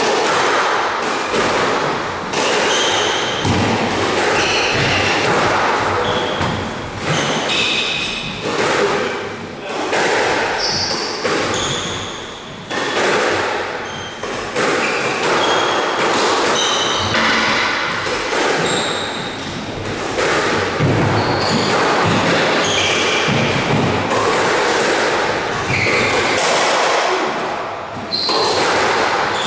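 A squash rally: rackets strike the small rubber ball, which thuds off the walls and floor again and again, with sneakers squeaking on the court floor between shots.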